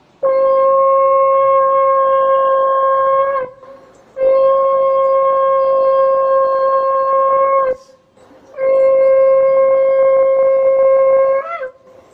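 A conch shell (shankha) blown in three long, steady blasts of about three seconds each, with short pauses between them. Each blast holds one unchanging note and ends with a brief wobble.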